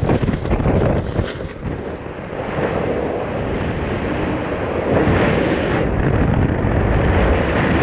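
Wind rushing over a skydiver's camera microphone under an open parachute: a steady noise of air that eases off briefly about two seconds in and grows stronger again about five seconds in.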